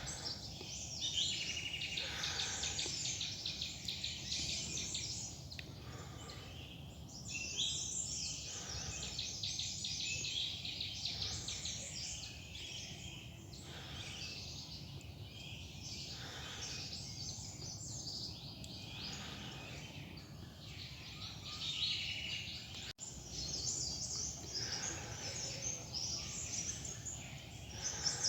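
Forest songbirds chirping and twittering in quick repeated bursts of high notes, over a steady low rumble.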